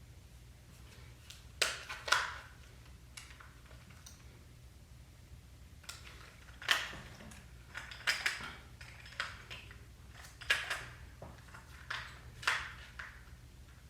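Sharp hard-plastic clicks and knocks in short clusters, about a dozen in all, from handling a Vivitar 283 flash unit while working at its battery compartment.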